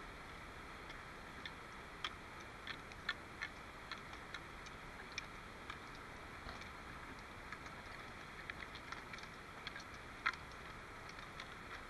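Trekking pole tips clicking irregularly on a footbridge deck as a group walks across, with a steady rushing of river water underneath.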